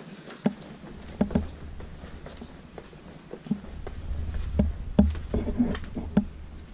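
Footsteps on bare wooden stairs and floorboards: irregular thuds, about a dozen of them, with a low rumble under them that grows stronger about halfway through.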